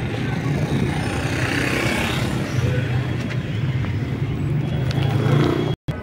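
Steady city street traffic noise of cars on the road around a square, with voices in the background. The sound cuts out for a moment near the end.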